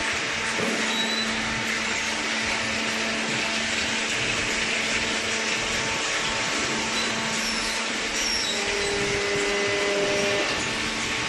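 Steady machine noise from a running motor, with a constant low hum and no change in pace.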